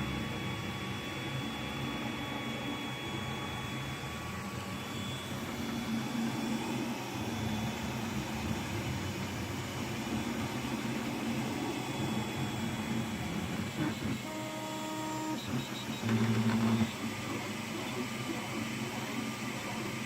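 Anet A8 3D printer printing: its stepper motors whir and whine in shifting tones as the print head and bed move. There is a brief, louder buzz about three-quarters of the way through.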